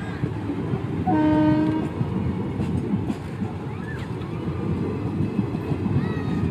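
Passenger train coaches rolling past with a steady rumble and wheel clatter on the rails. About a second in, a short horn blast sounds for under a second.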